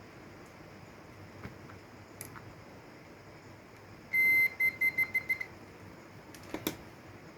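High-pitched electronic beeper sounding once for about half a second, then about six quick short beeps. A couple of clicks follow near the end, over a faint steady hiss.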